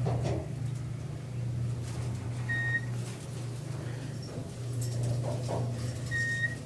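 Elevator running with a steady low hum, and two short electronic beeps about three and a half seconds apart.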